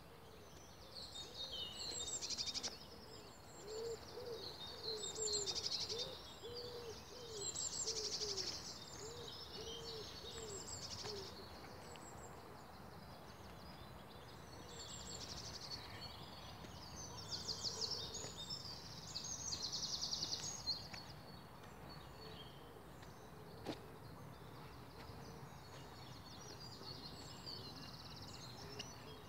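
Songbirds singing in a morning chorus: short, high trilled phrases every second or two, louder in a few bursts. From about four seconds in, a low call repeats about a dozen short hooting notes for some seven seconds, then stops.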